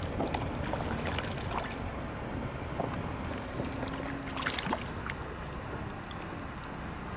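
Wind rumbling on the microphone, with scattered small clicks and rustles.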